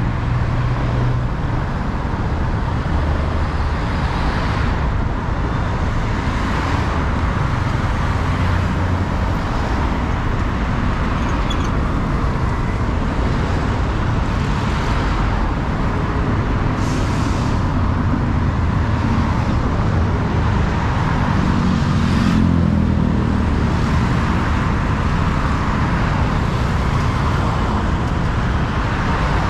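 Riding on a motorcycle taxi through busy city traffic: steady motorcycle engine and road rumble mixed with the noise of surrounding cars, with several brief hissing surges.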